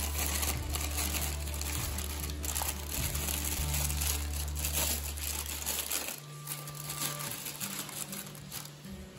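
Packaging crinkling and rustling as it is handled, with irregular crackles throughout.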